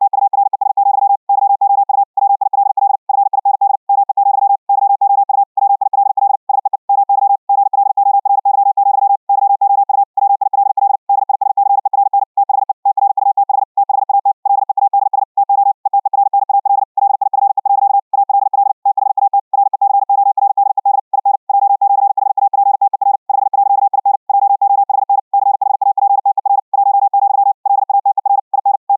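High-speed Morse code (CW) at about 60 words per minute: a single steady tone keyed on and off in rapid dots and dashes, with short breaks between characters and words. It is played back as received by a Raspberry Pi 4 after passing over the internet through the Vorbis codec with RTP.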